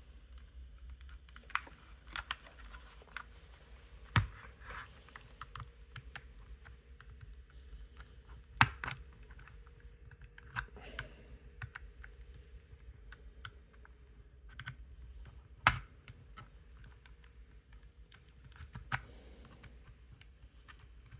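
Small plastic clicks and scrapes of a pry tool working at the clipped-together shell of an Xbox One controller, with three sharper snaps about 4, 9 and 16 seconds in as the shell's latches give.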